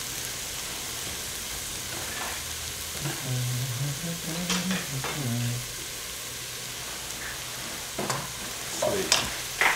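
Onions sizzling steadily in hot oil in a pot as they are stirred with a wooden spoon. A few sharp knocks near the end.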